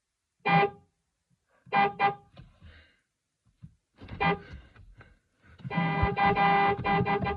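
Car horn honked in short blasts: one about half a second in, a quick double honk near two seconds, another just after four seconds, then a longer stuttering run of rapid honks near the end.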